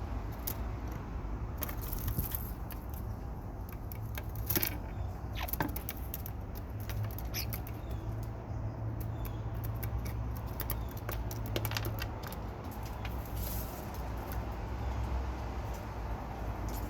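Scattered sharp clicks and taps with a few faint, short bird chirps, over a steady low rumble.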